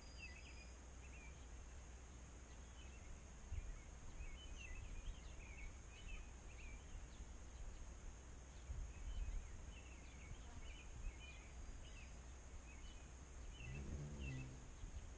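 Small birds chirping and twittering faintly in many short calls, over a steady high hiss and a low rumble.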